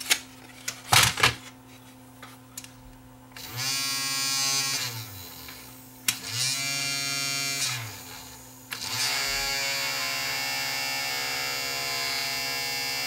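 Panasonic DVD-S35's disc spindle motor, fed straight from a bench power supply, spinning up with a rising whine and coasting down twice. It then spins up a third time and runs steadily at speed, putting out a lot of vibration, which the owner suspects means the motor is going bad. A few sharp clicks of handling come first.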